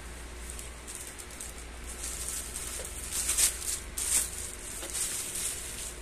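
Clear plastic wrapping crinkling and rustling in short bursts as a hand handles a bagged air purifier inside its cardboard box, loudest about three and four seconds in.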